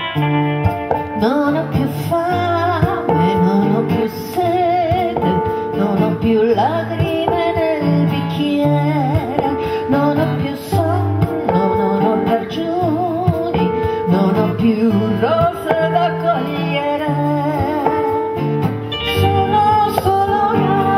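A woman singing a song live over acoustic guitar and low sustained accompaniment. Her voice comes in about a second in, on held notes with a wavering vibrato.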